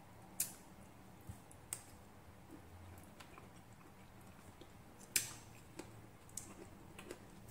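Quiet pomelo eating: a scattering of short, sharp wet clicks from chewing and from fingers peeling the membrane off the fruit segments. The loudest click comes about five seconds in.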